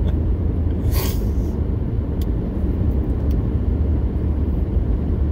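Steady low engine and road rumble heard from inside a moving truck, with a brief hiss about a second in.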